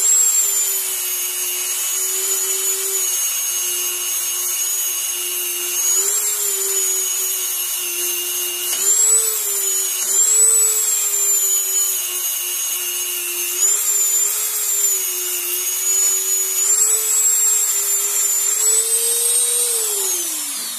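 Dremel rotary tool with an abrasive sanding attachment, running flat out while grinding paint off a steel dirt-bike frame: a steady high whine that wavers in pitch, then winds down near the end as it is switched off.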